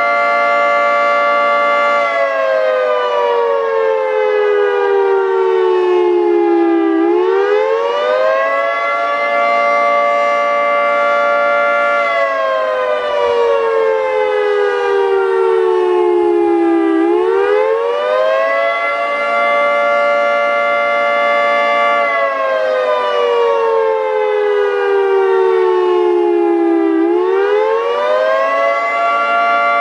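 Federal Signal 3T22 three-tone electromechanical siren sounding the attack signal: a loud chord that holds steady for a few seconds, slides slowly down, then sweeps quickly back up, about every ten seconds, three times over.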